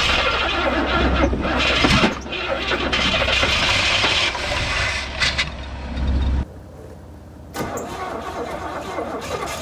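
1971 Buick GS V8 firing and running rough for a few seconds on its own after a long lay-up, then cutting out abruptly about six seconds in; about a second later the engine noise starts up again. It won't keep idling, and the aging MSD ignition box is the suspect.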